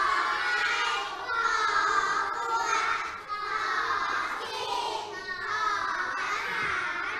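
A class of young children reciting together in chorus, chanting the names of the Thai high-class consonants one after another.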